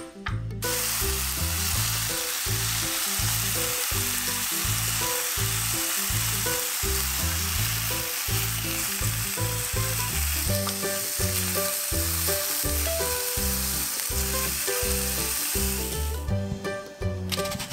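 Minced-meat patties wrapped around bundles of spaghetti sizzling steadily as they fry in a pan; the sizzle stops about sixteen seconds in.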